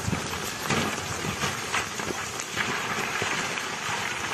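Loose rocks and gravel sliding and clattering down a steep scree slope: a steady rattling hiss dotted with many small knocks.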